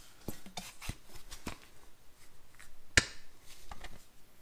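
Handling noises from a Canton Accusump's aluminium cylinder as a hand reaches inside to push the piston out: scattered light clicks and rubs, with one sharp metallic knock about three seconds in that rings briefly.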